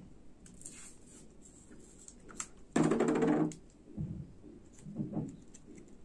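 Scattered light clicks and rustles of hands working a slingshot's cord and rubber band, with a brief louder hum about three seconds in.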